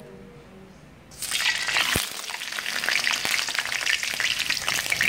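A whole shell-on prawn hitting hot oil in a wok about a second in, the oil starting at once to sizzle and spatter loudly with dense crackling.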